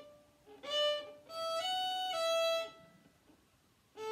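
Violin bowed slowly one note at a time: a short open-A lead-in, then D, open E, F sharp and back to E, each held about half a second, followed by about a second's pause. This is the opening phrase of a fiddle tune, played slowly as a teaching demonstration.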